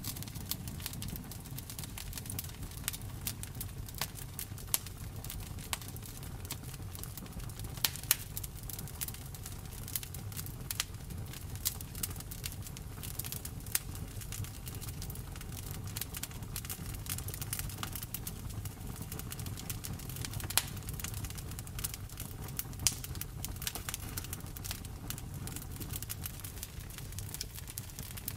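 Campfire burning: a steady low rumble with frequent irregular crackles and a few louder pops of the wood.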